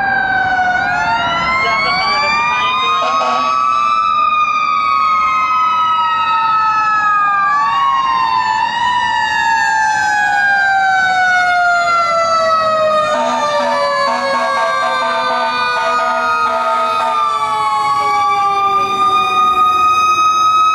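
Fire engine sirens wailing as the engines approach. The pitch rises quickly and then winds down slowly over several seconds, and two sirens overlap out of step, with fresh wind-ups about a second in and again past the middle.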